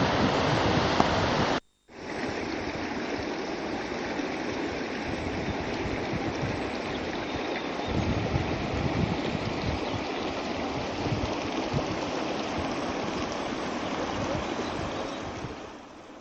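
Fast-flowing river water rushing steadily. It drops out briefly about two seconds in, continues a little softer, and fades near the end.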